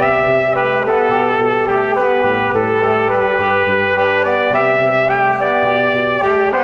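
Background music: a melody of held notes over a bass line.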